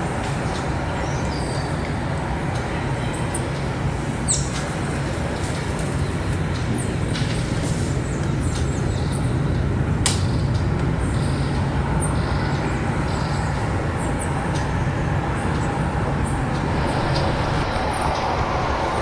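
Steady low rumble of distant city traffic, with faint short high bird chirps scattered through it and one sharp click about ten seconds in.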